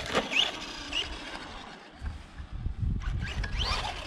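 Brushless motor of a Remo Hobby 1035 1/10-scale RC monster truck running on a 3S battery, whining in short rising sweeps as it accelerates hard, twice near the start and again near the end, over a low rumble.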